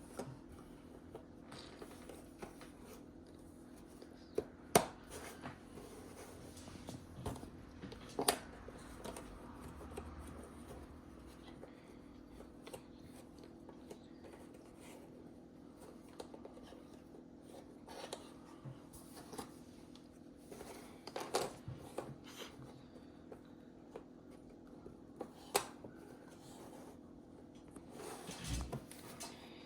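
Faint handling of cardboard jigsaw puzzle pieces: scattered light clicks and taps as pieces are picked up, shuffled and pressed into place, a few sharper taps among them, over a steady low hum.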